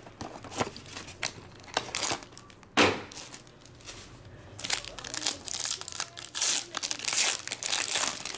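Silver foil trading-card pack (Panini Contenders Optic) being handled and torn open: scattered crinkles, then dense crinkling and tearing over the last few seconds. A single sharp knock about three seconds in.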